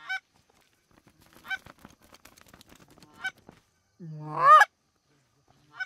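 Canada goose honks: a few short, fainter honks, then about four seconds in a loud two-note honk, a low note breaking up into a high one.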